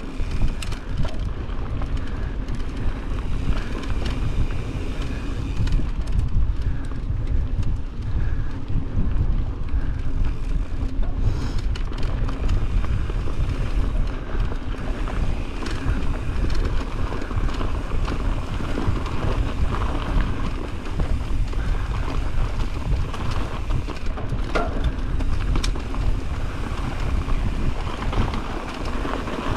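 Wind buffeting the microphone of a mountain bike descending a dirt trail, with tyre crunch and scattered clicks and rattles from the bike over rough ground.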